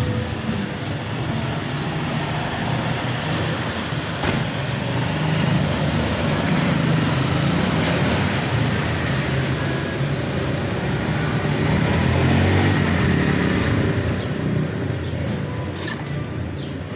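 Motor-vehicle traffic: engines running and passing with a steady low rumble, swelling a little about twelve seconds in.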